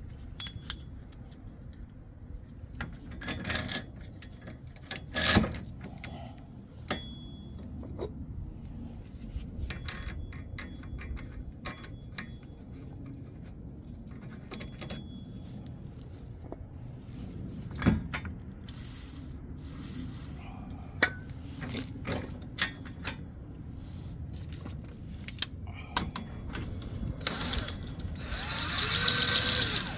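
Metal tool and press-tool parts clinking and knocking while the wheel bearing press tool is set up on the hub. There are scattered sharp clicks, some with a brief ring, and louder knocks about five seconds in and around eighteen seconds, then a denser rasping noise for about two seconds near the end.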